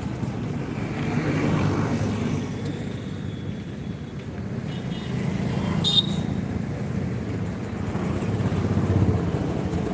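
Street traffic noise, with motorcycle engines running close by and passing. A short sharp click about six seconds in.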